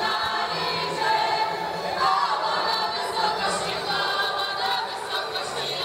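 Folk ensemble of men and women singing in chorus, holding long notes in several voices, with a fiddle playing along.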